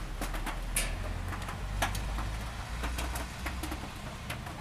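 Light drizzle: scattered raindrops ticking irregularly on metal, over a low steady rumble.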